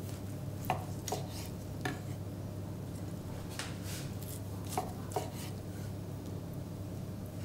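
Chef's knife slicing through a rolled rabbit saddle and knocking on a wooden cutting board: several sharp taps with short slicing strokes between them, over a steady low hum.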